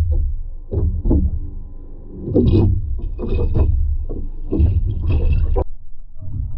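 Water splashing and sloshing in an aquarium in a rapid, irregular series of bursts as the toman (giant snakehead) thrashes while seizing a prey fish; it cuts off abruptly about a second before the end.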